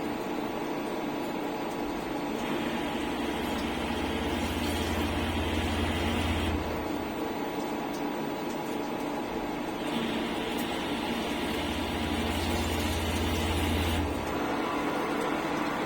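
CNC turning-milling centre running a machining cycle: a steady machine hum, with a louder cutting sound coming in for two spells of about four seconds each, a couple of seconds in and again past the middle.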